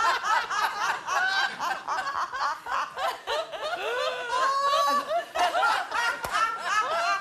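Several women laughing together, overlapping laughs and giggles with no break.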